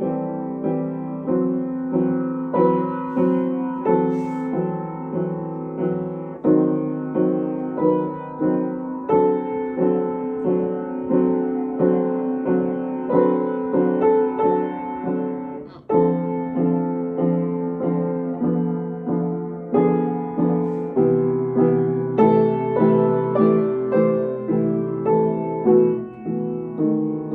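Solo piano playing a steady flow of struck notes and chords, with a brief break about sixteen seconds in before the playing picks up again.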